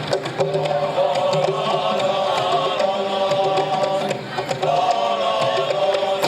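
Male nasyid voices singing a qasidah together, drawing out long held notes over a low sustained voice line, with light hand-percussion strokes underneath.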